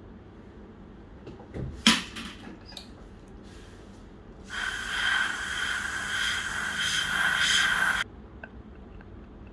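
A sharp click about two seconds in, then a dental air syringe blowing a steady hiss of air into the mouth for about three and a half seconds before cutting off suddenly, drying the teeth before articulating paper goes in.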